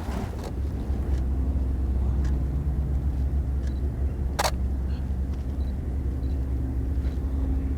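Steady low rumble of outdoor background noise, with a single sharp DSLR shutter click about halfway through and a few fainter ticks around it.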